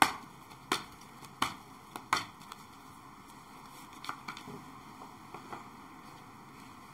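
Tarot cards being handled: a string of sharp card snaps and taps, the loudest in the first couple of seconds and fainter ones after.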